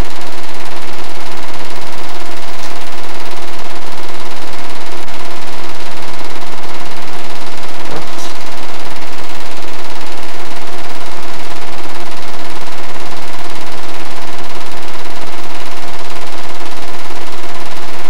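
8mm film projector running with a steady mechanical clatter.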